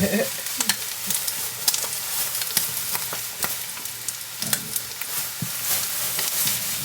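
Food sizzling in a hot pan with a steady hiss and frequent crackling pops.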